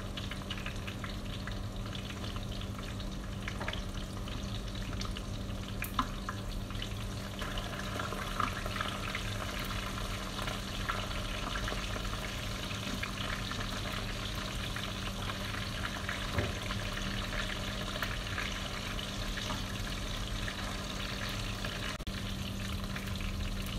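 Chunks of marinated meat frying in hot oil in a pan, browning before the sauté, with a steady sizzle and crackle. A couple of sharp clicks stand out.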